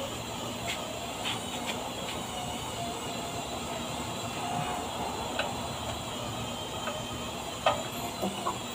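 Steady workshop background noise with scattered light metallic clicks and knocks from parts being handled by hand on the underside of a lifted car; the sharpest click comes near the end.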